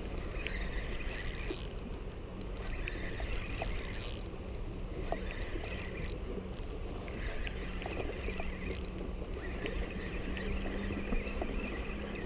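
Penn Slammer III 4500 spinning reel being cranked in several short spells, its gears whirring as line is wound back in after the fish came off. A steady low hum and wind rumble run under it.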